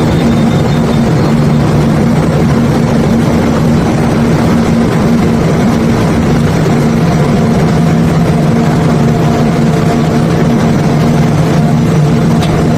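Heavy diesel engine running steadily at an even speed, under a constant rushing noise.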